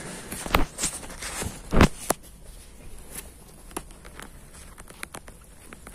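Handling noise of a phone camera being gripped and set in place: a series of knocks and clicks, the loudest about half a second and just under two seconds in, then scattered small ticks.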